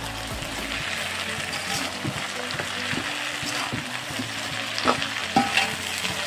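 Chopped greens stir-frying in a metal wok: a steady sizzle, with the scrapes and knocks of a perforated metal spatula stirring them around the pan.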